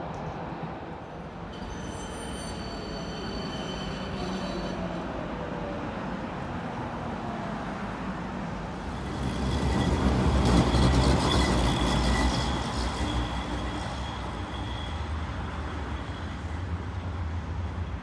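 Electric tram passing close by: a loud low rumble of wheels on the rails with a steady high whine from its traction motors, swelling about nine seconds in, loudest around ten to twelve seconds, then fading to a low drone. A fainter high whine is heard for a few seconds early on.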